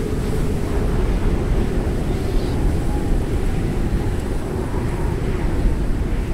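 Steady, low rushing noise with no rhythm or distinct events: an ambient bed like wind or distant surf.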